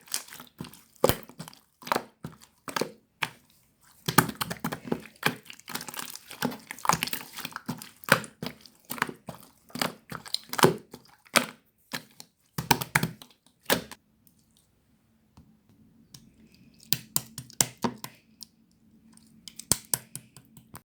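Bead slime squished and pressed by hand, crackling and popping in dense runs of small sharp clicks. The clicking stops for about two seconds partway through, then starts again.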